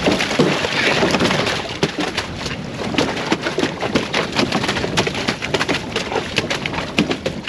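Freshly landed mahi-mahi thrashing on the boat's deck: a rapid, irregular run of slaps and knocks over wind and water noise.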